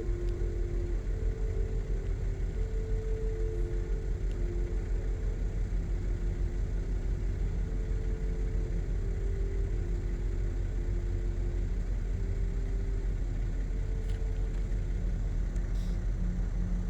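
A steady low rumble with faint steady tones that come and go, stepping between a few pitches.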